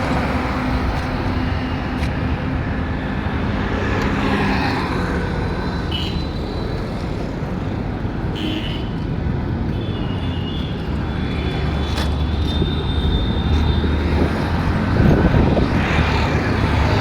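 Road traffic running steadily past, a mix of engine rumble and tyre noise, growing louder near the end.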